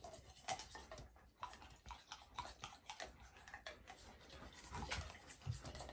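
Toothbrush scrubbing an Alaskan malamute's teeth: faint, irregular scratchy strokes of the bristles.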